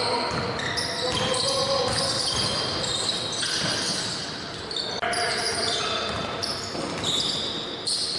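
Basketball game in a large gym: the ball bouncing on the hardwood, sneakers squeaking in short high chirps, and players calling out, all echoing in the hall.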